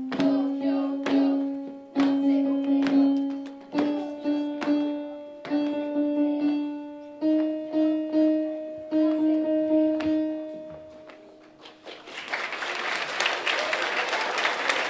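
Electronic keyboard playing a simple melody of struck, repeated notes that climb step by step in pitch. The music stops about twelve seconds in and the audience breaks into applause.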